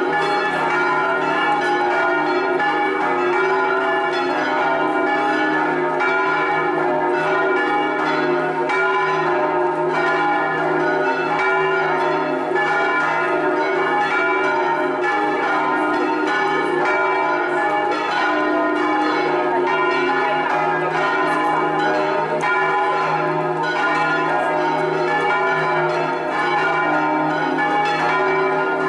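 The swinging bells of San Rufino Cathedral, a peal tuned in E-flat, all but the fourth, ringing together in a full festive peal. Their strokes overlap without a break.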